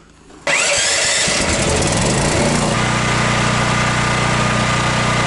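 A benchtop table saw is switched on about half a second in. Its motor spins up with a rising pitch over roughly two seconds, then runs steadily at full speed with the blade free-spinning.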